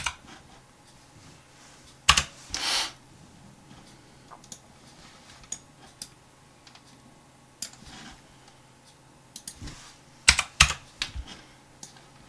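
Computer keyboard keys and mouse buttons clicking in scattered taps: one at the start, a few about two seconds in, odd single clicks after that, and a quick run of clicks around ten seconds in.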